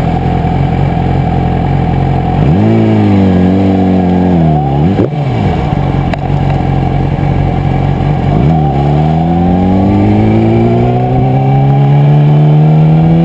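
2008 Yamaha R6 inline-four sport-bike engine running at a steady low note, then accelerating away through the gears: the pitch rises, drops back twice at gear changes, and climbs steadily near the end.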